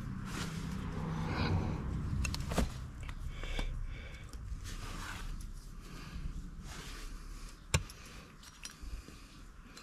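Hoof nippers cutting the hoof wall of a horse's front hoof during a trim, giving a few sharp snaps, the loudest about two seconds before the end.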